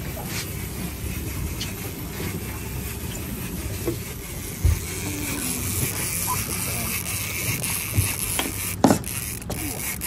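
Steady background noise on the deck of an offshore fishing boat, with faint voices, a few light clicks and two dull thumps, about halfway and near the end.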